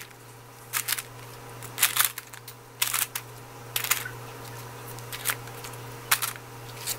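Parchment paper rustling and crinkling as pan-fried pancakes are picked off a wire rack and laid onto it by hand, a short rustle about once a second, over a faint steady low hum.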